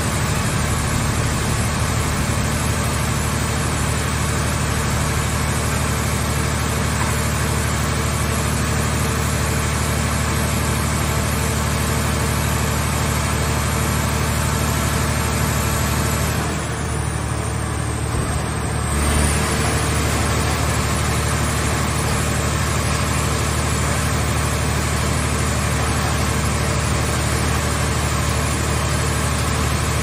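Hydraulic scrap-car baler's power unit running steadily, a loud engine-and-pump hum with a broad hiss over it. A little past the middle the hiss drops away for a couple of seconds, then a short low thump as it comes back.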